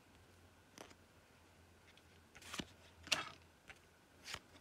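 Trading cards being slid and flicked off the stack one by one, giving several short, faint papery swishes and clicks.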